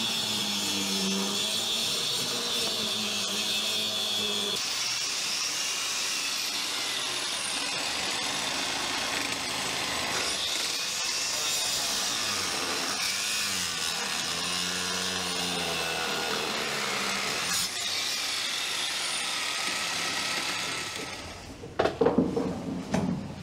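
Handheld power tool cutting steadily into the wooden framing at the base of a rotten, waterlogged freezer enclosure. The tool noise stops near the end and gives way to a few loud knocks.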